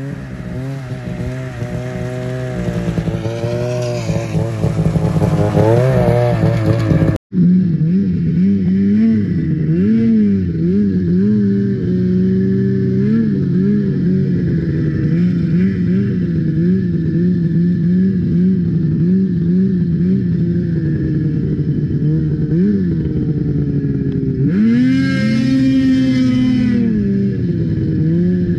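Snowmobile engine running, getting louder and rising in pitch as a sled rides up. After a cut it is heard from on board, its pitch wavering up and down with the throttle, with one harder rev that rises and falls near the end.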